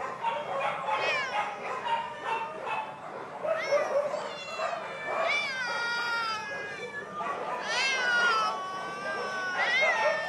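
Several sheltered pets crying over one another: long, high cries that slide down in pitch, overlapping throughout.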